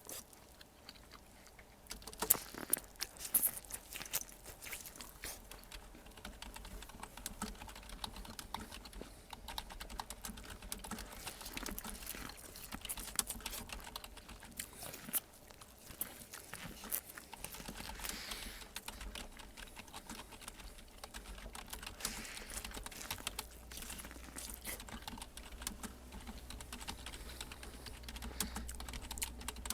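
Typing on a computer keyboard: a steady, dense run of key clicks that starts about two seconds in.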